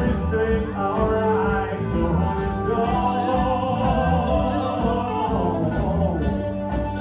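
Live band playing: electric guitar with a singing voice over a steady low end.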